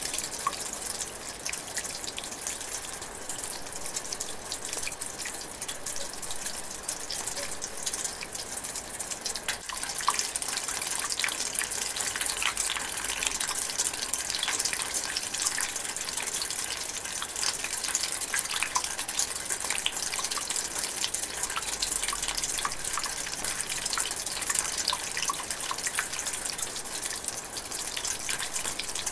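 Light rain drizzling in a forest: a steady hiss with many separate drops ticking, a little heavier from about ten seconds in.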